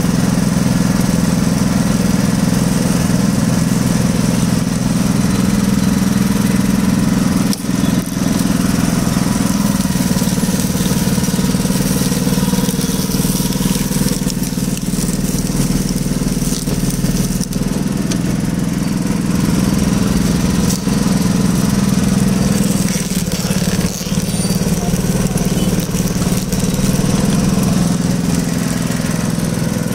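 Motor-driven sugarcane juice crusher with wooden rollers running, a steady, even engine hum with no change in speed.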